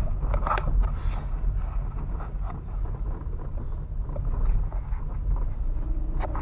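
Steady low engine rumble of a moving vehicle, with wind buffeting the microphone and a few small knocks.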